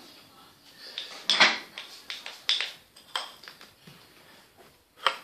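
Handling of a rocket motor's aluminium case and paper tube on a wooden table: a few short knocks and rustles, the loudest about a second and a half in.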